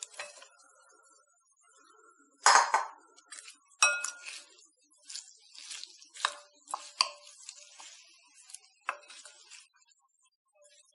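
A spoon clinking and scraping against a bowl as chopped capsicum is tipped in and stirred into the oil: a run of irregular knocks, some with a short ring, the loudest about two and a half seconds in.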